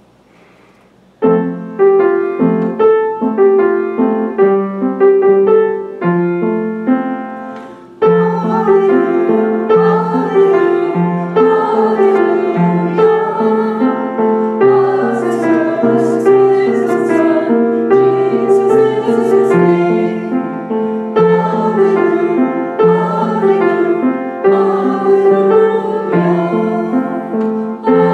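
Piano music starts about a second in, and from about eight seconds in a singing voice joins over the piano accompaniment, a song to sing along with.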